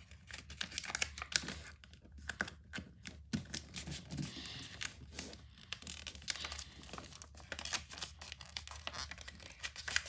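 A sheet of paper being folded and creased by hand, crinkling and rustling in many short crackles.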